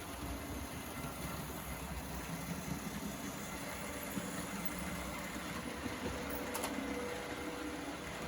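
Märklin model train running along the track: a steady rumble of motor and wheels, with one small click about six and a half seconds in.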